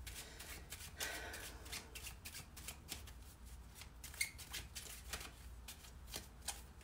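Tarot deck being shuffled by hand: a quiet, irregular run of soft card clicks, a few a second, as the cards slide and tap against each other.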